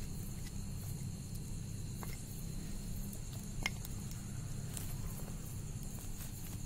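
A smouldering wood-and-charcoal fire giving off thick smoke, with a few faint crackles over a steady low rumble.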